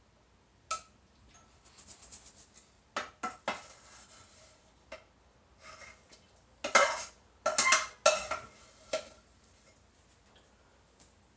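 Cookware and utensils clattering: scattered metal clinks and knocks, some ringing briefly, with a busier run of clatter a little past the middle.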